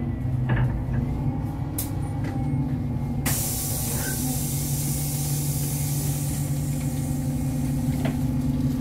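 City bus heard from inside the cabin: a steady low hum from the running bus, then about three seconds in a loud hiss of compressed air starts suddenly and keeps going.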